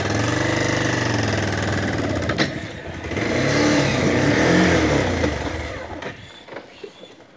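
Motorcycle engine running while riding slowly, revving up and down in the middle, then dropping away toward the end.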